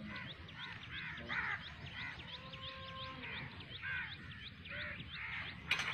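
Birds calling: a rapid series of short high chirps, about four a second, with louder caw-like calls every second or so over them. A single sharp knock sounds near the end.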